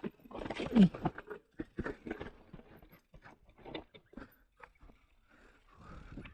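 Mountain bike clattering down a rough trail over rocks and roots: irregular knocks and rattles from the wheels and frame, the strongest about a second in.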